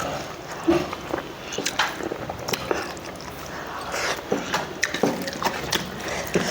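Close-up eating sounds of someone eating rice with goat meat: wet chewing and lip smacks, with short sharp clicks every fraction of a second.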